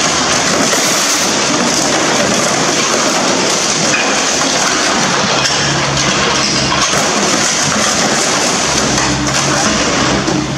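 An excavator's hydraulic demolition claw crushing and tearing into the rear bodywork of a Lamborghini Murciélago: a loud, continuous crunching and crackling. The excavator's engine hums underneath, coming up in the middle and again near the end.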